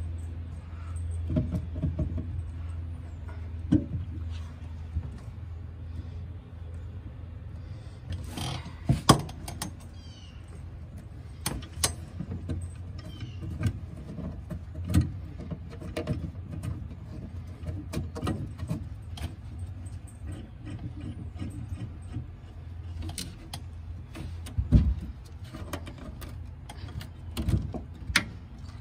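Scattered metal clinks and knocks as a steel camper tie-down bracket and its bolt and nut are handled and fitted against a pickup's bed rail, with a few sharper knocks, over a steady low hum.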